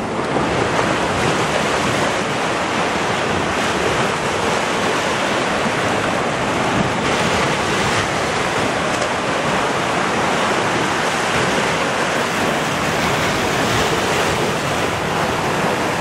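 Ocean surf breaking and washing up a sandy beach: a steady, continuous rush of waves.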